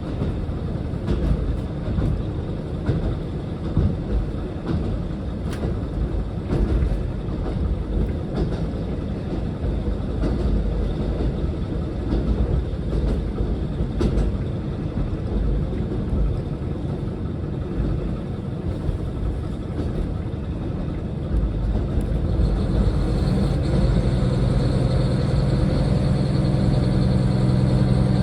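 Diesel train running on the rails: a steady low rumble with scattered clicks. About 22 seconds in, a steady low hum joins and the sound grows a little louder.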